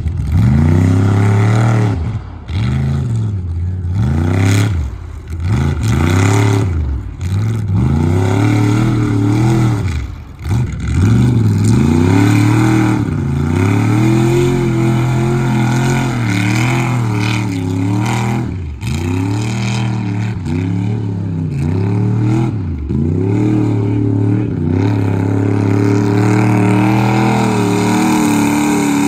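Chevy OBS pickup's engine revving hard again and again as the truck churns through mud and water, the pitch climbing and falling every second or two.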